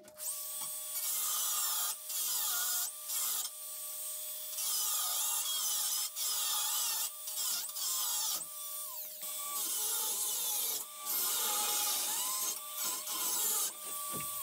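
Grinder disc cutting into sheet steel in repeated passes of a second or two, with short pauses between them and its whine wavering as it bites.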